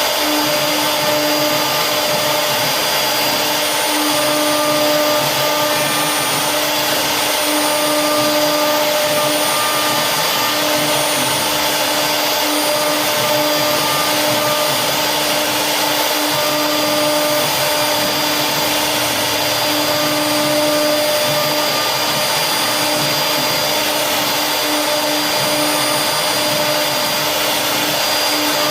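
CNC wood router's spindle running steadily under load, a constant high whine over a hiss as it carves a design into wood.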